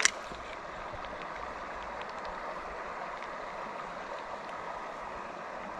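Steady rush of flowing stream water, with a single sharp click at the very start.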